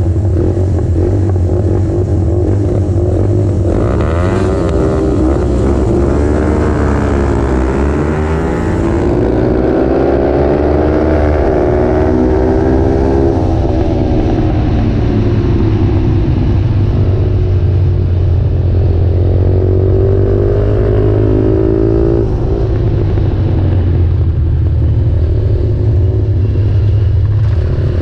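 Small motorcycle engine heard from on board, revving up and easing off several times as it accelerates and slows for corners. Heavy wind rumble on the microphone runs underneath.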